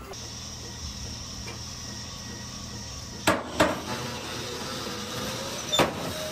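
Robotic milking stall: a steady machine hum with three sharp metal clanks, two close together about halfway through and one more near the end.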